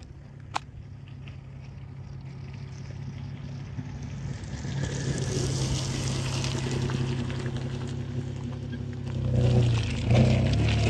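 A motor vehicle's engine running, growing steadily louder with a rising hiss, its pitch dipping and climbing again near the end.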